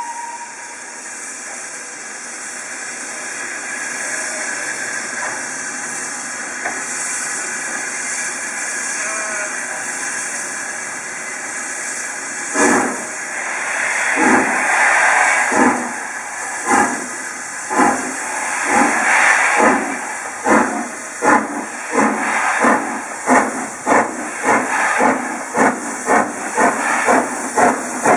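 Southern Railway S15 class 4-6-0 steam locomotive No. 825 pulling away with a train. For about the first twelve seconds it gives a steady hiss of steam. Then its exhaust chuffs begin, slow and loud at first and quickening to about two a second as it gathers speed.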